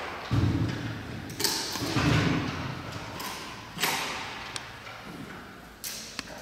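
Giant panda biting and chewing a bamboo stalk: about six sharp crunches as the bamboo splits, with duller low chewing sounds between them.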